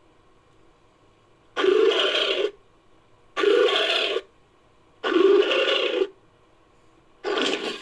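Designed creature sound effect for a Masiakasaurus dinosaur: a series of short calls, each about a second long, with gaps of about a second between them. Four calls are heard, the last starting near the end.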